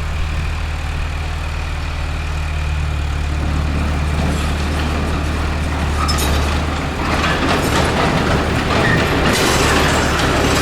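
Heavy diesel engine of a bulldozer running with a steady low drone, joined by louder rattling and rumbling from about seven seconds in.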